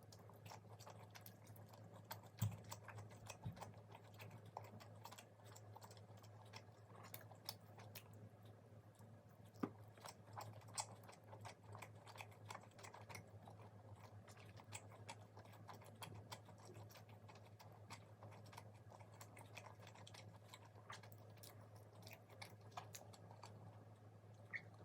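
Close-up chewing and crunching of crisp fried food, a dense run of small crackling clicks with a few louder crunches, over a steady low hum.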